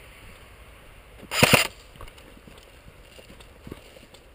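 Airsoft M4-style electric replica rifle (AEG) firing a short burst of about four rapid shots, about a second and a half in.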